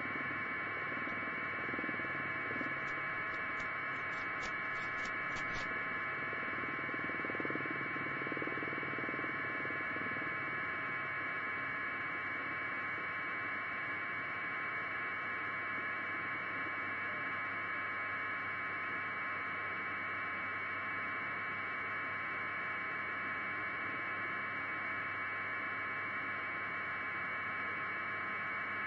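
Steady static hiss with a faint hum, unchanging throughout, with a few faint clicks in the first several seconds.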